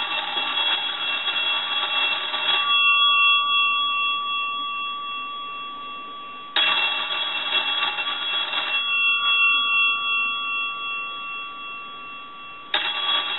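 Ringer bells of an old US Navy shipboard telephone rung on a test line in the standard cadence: three bursts of about two seconds, about four seconds apart. The bells' tones keep sounding between the bursts.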